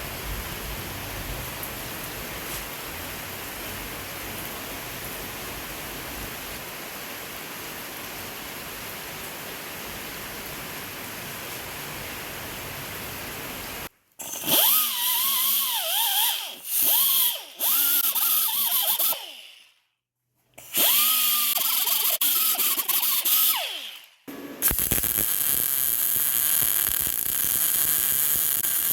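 Handheld power tool running in the middle of repair work: a steady hissing run, then after an abrupt change several short runs in which the motor's pitch rises and falls as the trigger is worked, then a steady run again near the end.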